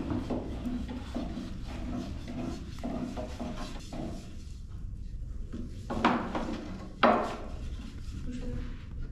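Long thin wooden rolling pins rolling out tiri bread dough on round wooden boards: a steady run of short rolling and rubbing strokes with light wooden knocks, and two sharp, louder wooden knocks about six and seven seconds in.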